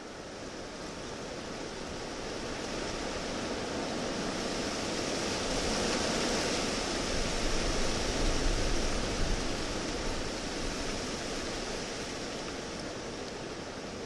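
Recorded wind: a continuous rushing hiss that builds to its strongest around the middle, with a few low buffets, then eases a little.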